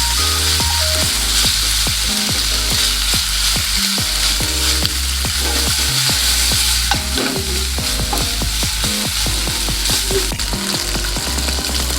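Food sizzling in a hot frying pan as it is stirred, a steady hiss throughout, with background music over it.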